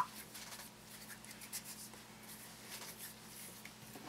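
Soft rubbing and scratching of hands working Play-Doh and plastic toy molds, with a small click at the start.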